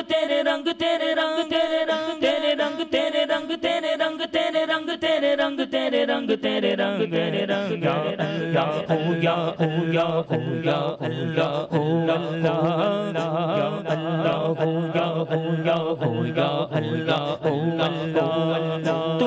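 A male naat singer's voice, amplified through a microphone, holding one long steady note and then, about six seconds in, sliding down into lower, ornamented melismatic singing. A regular beat of sharp clicks runs under the voice.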